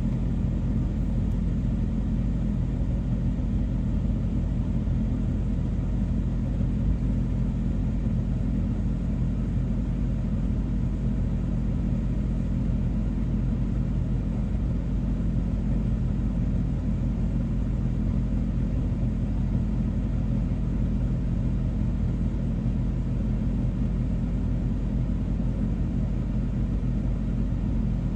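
A banana train's steady low rumble with an engine drone.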